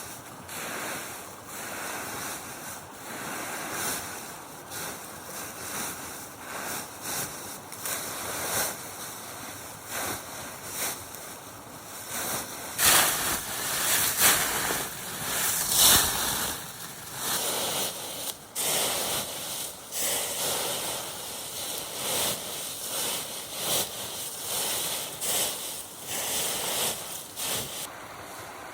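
Broom sweeping a floor in repeated swishing strokes, about one a second, louder through the middle.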